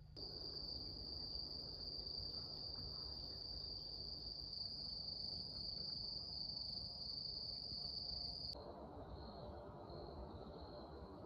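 Crickets trilling at night: one steady, high-pitched trill. About eight and a half seconds in, the sound cuts to a fainter, pulsing chirping.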